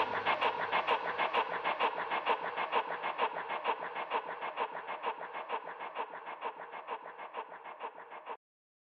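Electronic background music with a steady pulsing beat, fading out and ending about eight seconds in.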